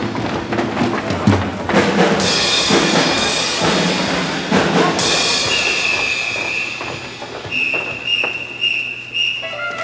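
Live band music with heavy drum hits at the start, thinning about halfway through to a high note held with a few short breaks.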